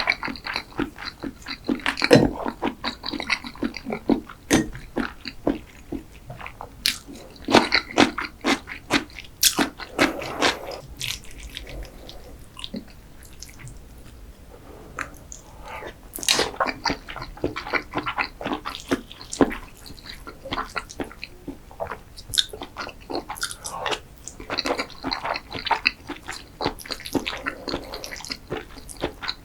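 Close-miked eating sounds: a person chewing and biting food, with crisp crunches and wet mouth clicks coming in irregular clusters.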